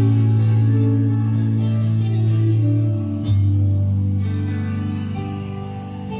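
Music played back from a vinyl record on an Acoustic Research turntable with a Shure V15 Type V-MR cartridge: a guitar-led instrumental passage over held bass notes, with the bass moving to a new note about three seconds in.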